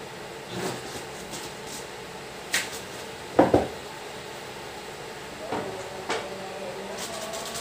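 Unboxing handling noise: a plastic toy xylophone-organ and its cardboard box knocking and scraping against a wooden table, as a few scattered knocks with the loudest thud about three and a half seconds in.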